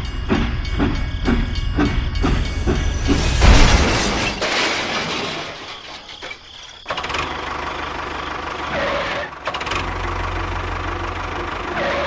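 Engine sounds: a chugging rhythm of about four beats a second, then a louder rough stretch, then, after an abrupt change, a steady low running drone.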